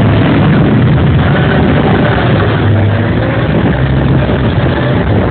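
Tractor engine running hard and steady, its pitch shifting up and down a few times as the load changes, over a constant rushing noise.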